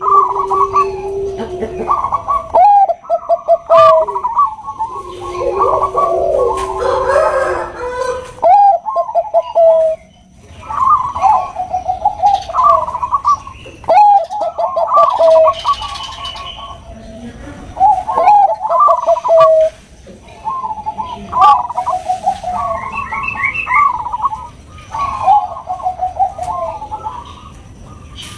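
Bangkok-strain perkutut (zebra doves) cooing: loud trilled coo phrases of a couple of seconds each, repeated one after another with short pauses between them.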